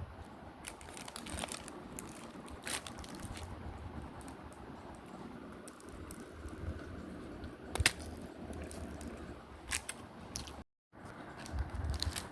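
A person eating a McDonald's meal up close: chewing and crunching with scattered sharp clicks and crinkles. The sound drops out completely for a moment near the end.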